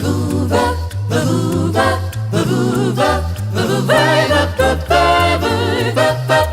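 Music: a cappella-style group singing over a stepping bass line.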